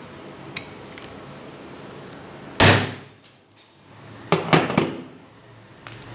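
Metal-on-metal clanks from hand tools working a small steel spring at a workbench. There is a faint click, then one loud sharp clank with a brief ring about two and a half seconds in, then three quick sharp hits close together around four and a half seconds.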